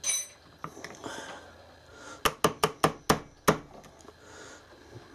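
A fast run of six sharp knocks, like hammer taps, about five a second, coming from someone else working in the workshop. A short clatter comes right at the start.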